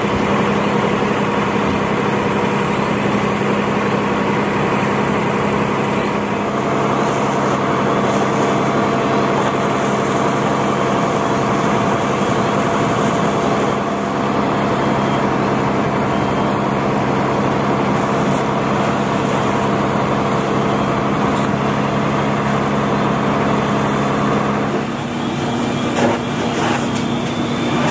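Fire truck engine running steadily at high revs, as when it drives the pump feeding the hoses, over a steady hiss. About 25 seconds in, the engine note changes and settles slightly higher.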